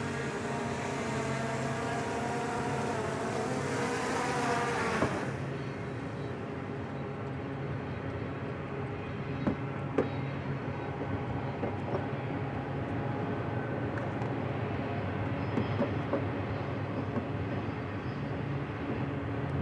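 Union Pacific diesel-hauled freight train running: a steady engine drone with hiss for the first five seconds, which changes abruptly to a lower steady rumble. A few scattered sharp clanks follow.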